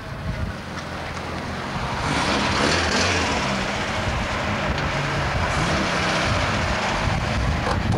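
Mk1 Ford Escort's engine running, with wind rushing over the microphone, louder from about two seconds in.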